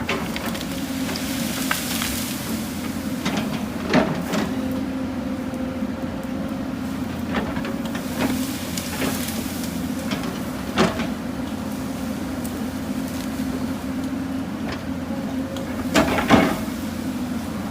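Hyundai 220 excavator running with a steady hum, with sharp knocks and scrapes from its bucket working earth and rock a few times, the loudest near the end.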